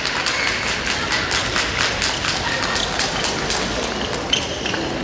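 Many children's sneakered footsteps running and pattering on a wooden gymnasium floor, echoing in the hall, with one sharper knock near the end.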